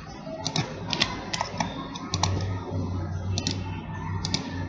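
Computer mouse clicking about six times at irregular intervals, placing points along a curve in CAD software. A low steady hum comes in about two seconds in.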